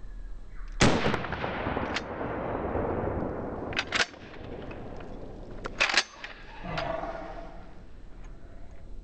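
A pump-action shotgun fires once about a second in, the blast ringing on for a couple of seconds. Then come sharp metallic clacks as the pump is racked one-handed, in two quick pairs around four and six seconds in.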